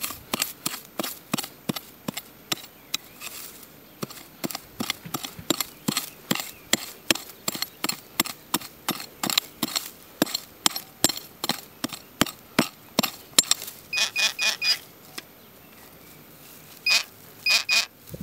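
A steady run of sharp clicks, about three a second, then from about 14 s two runs of short, high-pitched electronic beeps from a metal detector sweeping the ground: the detector signalling metal under the coil.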